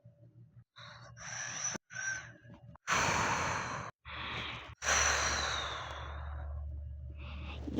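A person's breathy sighs and gasps, five in all with abrupt breaks between them, the last one long and drawn out.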